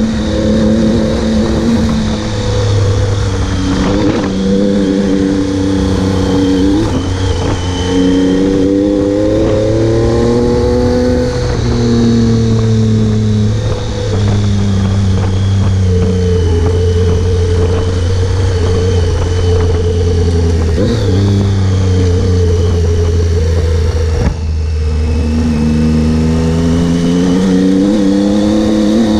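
Triumph Tiger 800 XCx's three-cylinder engine under way on a dirt road. Its revs climb and fall back several times, then hold steady for a long stretch, dip briefly near the end and climb again.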